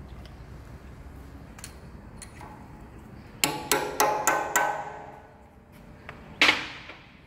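Small steel hammer tapping on the steel parts of a line-boring setup. It strikes five quick ringing taps about a third of a second apart, then one more single tap near the end.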